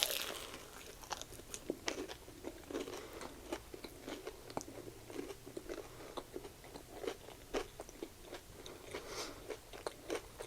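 Close-up eating of a Korean corn dog: mouth-closed chewing with many small, irregular crunches of the fried batter coating.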